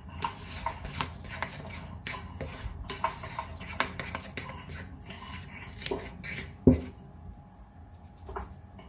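Metal spoon scraping and clinking against a large ceramic mixing bowl as desiccated coconut is folded into a thick creamed cake mixture, in quick short strokes. One louder knock comes about two-thirds of the way through, then a brief lull.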